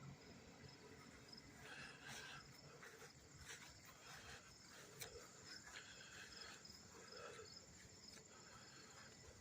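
Near silence: faint background tone with a few soft rustles and small ticks.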